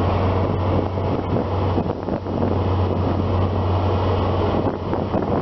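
Diesel engine of an HST's Class 43 power car running at the platform, a steady low drone, with wind buffeting the microphone over it.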